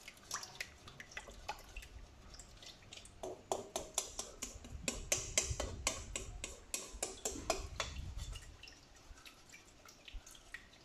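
Silicone spatula stirring a yeast and warm-water mixture in an enamel bowl: quick, irregular clicks and light liquid sloshing. The clicks come thickest in the middle.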